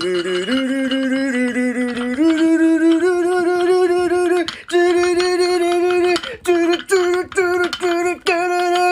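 A melody sung in long held notes that step upward in pitch, with short breaks between notes in the last few seconds.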